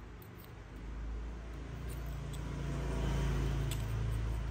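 Low engine rumble of a passing vehicle that swells from about a second in and slowly eases, with a few faint clicks over it.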